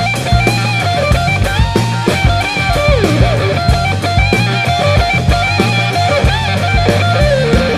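Rock music with electric guitar, bass and drums playing a steady beat.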